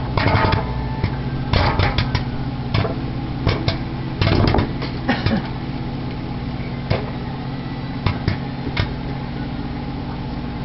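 Popcorn kernels popping off the cob inside a running microwave oven, over the oven's steady hum. The pops come in quick clusters at first and thin out to a few scattered ones after about five seconds, as the popping winds down.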